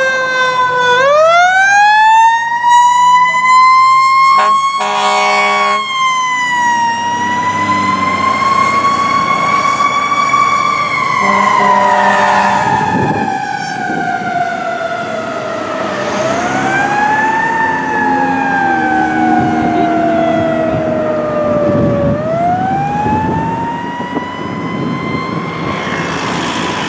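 A fire engine's Federal Q mechanical siren winds up, coasts down and is wound up again several times in long rising and falling glides. Air horn blasts sound about five seconds in and again about twelve seconds in.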